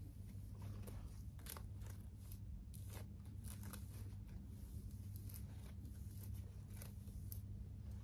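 Faint, irregular rustling and crackling of close handling, a dozen or so short scrapes spread through, over a steady low hum.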